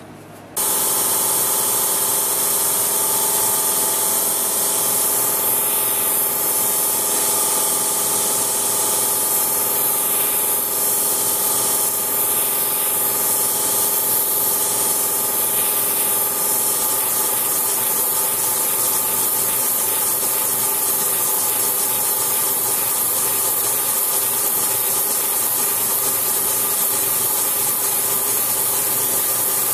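Sanford surface grinder running with its freshly balanced wheel passing over a steel planer gauge on the magnetic chuck: a steady grinding hiss over the steady hum of the spindle, starting about half a second in.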